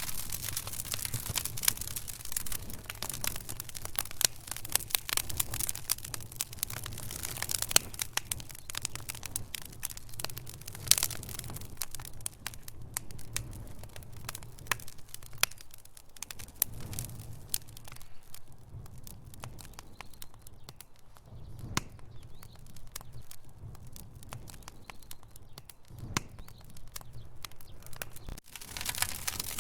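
Wood fire in a fireplace, logs crackling and popping at irregular intervals over a low, steady rumble of flame. The pops come thickest in the first half and thin out later.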